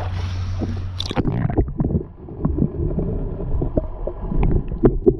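Water washing around an action camera at the surface, then a splash about a second in as it goes under. From then on the sound is muffled: a low underwater rumble and gurgle with scattered faint clicks.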